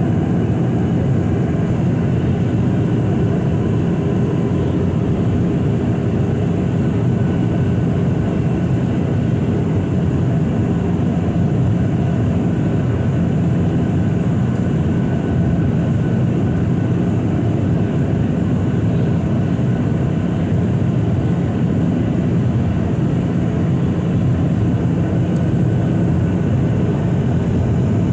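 Steady cabin noise inside a Boeing 737-800 in flight: the even hum of its CFM56-7B turbofan engines and the rush of air past the fuselage, heard from a window seat beside the engine.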